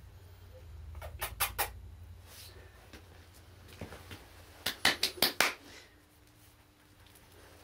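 Akita puppies moving about on the floor, with two short runs of quick sharp clicks, about five each, a few seconds apart.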